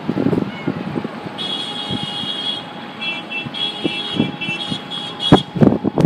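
Blizzard wind rushing, with a car alarm sounding a high-pitched tone from about a second and a half in, first held, then cut into short on-off pulses. Gusts of wind buffet the microphone near the end.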